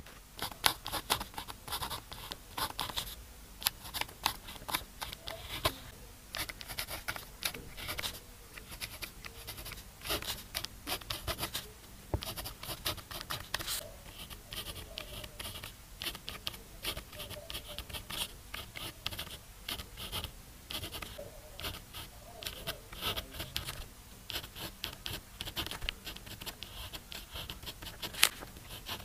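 Pen scratching on smooth paper while writing Chinese characters by hand: quick short strokes in bursts with brief pauses between them, and one sharper tick near the end.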